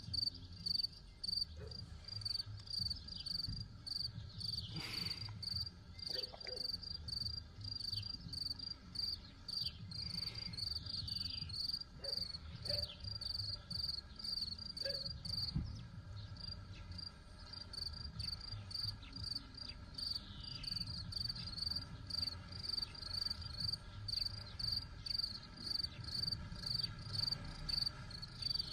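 Cricket chirping in a steady, even rhythm, about two chirps a second, with a few short falling bird calls and a low rumble underneath.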